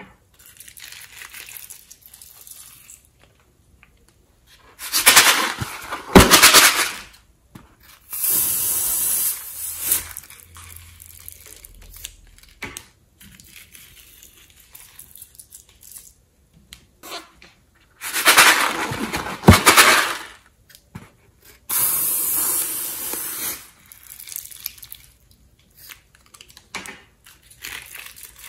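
Slime squeezed out of a cut-open balloon into a glass bowl, in two rounds. Each round is a loud, wet, crackling squelch lasting about two seconds, followed by a steady hiss of a second or two.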